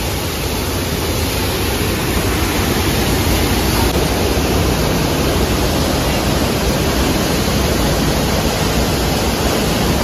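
Steady rushing of a nearby waterfall, a dense even roar of falling water.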